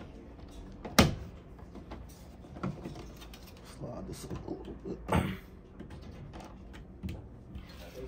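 Sharp plastic clacks and knocks as a four-gang plastic switch wall plate is pulled off and handled, the loudest about a second in and another about five seconds in.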